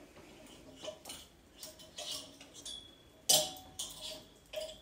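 Clothes hangers clicking and clinking on a clothes rail as garments are handled and taken down, a scatter of light clacks with the loudest about three seconds in.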